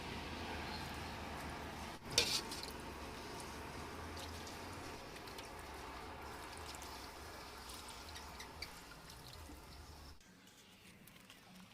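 Liquid sounds, dripping and running water over a steady low hum, with a sharp clatter about two seconds in. The hum and water noise drop away near the end.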